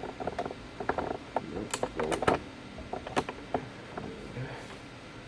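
A scattered series of short clicks and light knocks, about seven of them, over a steady background hiss that is left on its own near the end.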